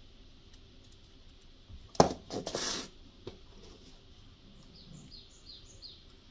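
A sharp knock about two seconds in, followed by nearly a second of rustling and scraping as knife-handle materials are handled on a workbench. Near the end a small bird chirps four quick descending notes.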